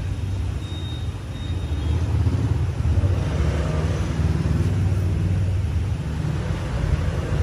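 A steady low mechanical hum of a running motor, even throughout with no clear rhythm or pitch changes.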